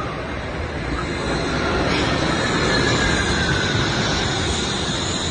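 Wuppertal Schwebebahn suspension railway car arriving at the platform: steel wheels running on the overhead rail with a steady rumble that swells as the car draws level. From about two seconds in a thin whine sets in and falls slowly in pitch.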